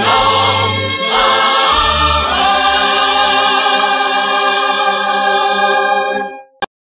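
Background music: a choir singing, ending on a long held final chord that stops shortly before the end, followed by a single brief click.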